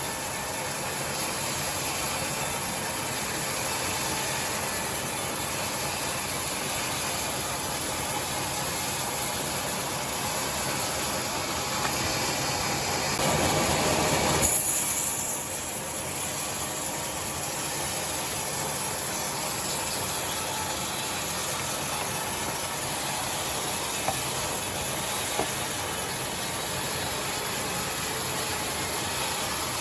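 Sawmill saw running steadily while timber is ripped into boards. About halfway through, a louder stretch of cutting ends abruptly.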